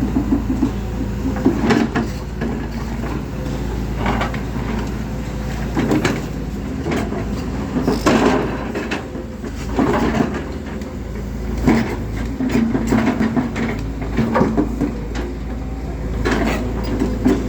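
Volvo tracked excavator's diesel engine running steadily, with repeated knocks and clanks every second or two.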